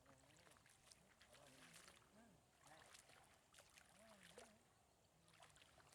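Near silence: faint outdoor background with faint distant voices and a few soft clicks.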